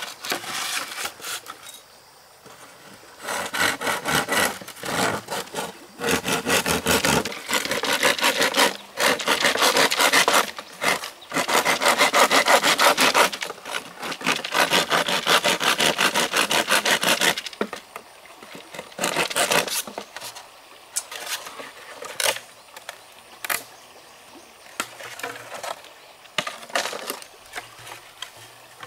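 Wood being sawn by hand in a long run of back-and-forth strokes from about three seconds in until past halfway, then a few scattered scrapes and knocks.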